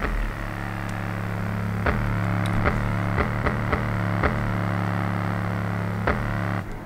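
Small bare subwoofer driver playing steady low bass notes, with a few sharp clicks at irregular spacing. Left unheld, it vibrates and rattles against the surface it sits on.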